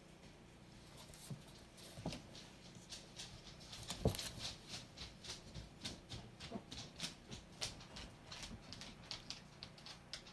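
Dog mouth sounds: a run of quick, wet clicks a few times a second, typical of a dog licking, with one louder knock about four seconds in.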